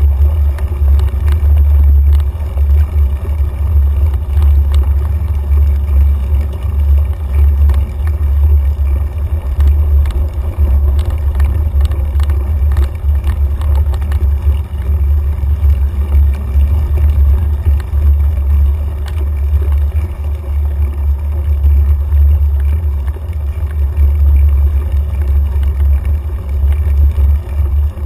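Loud, steady wind rumble on a mountain bike's handlebar-mounted camera as it rides a dirt trail, with scattered small clicks and rattles from the bike over the ground.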